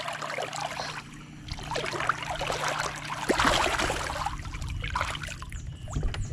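Water splashing and sloshing as a hand-held fish is let go into the river and a hand swishes through the water, with the loudest splashing about three and a half seconds in.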